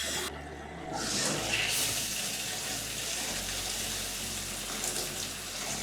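Shower head spraying water, a steady hiss that starts as the water is turned on and grows fuller about a second in.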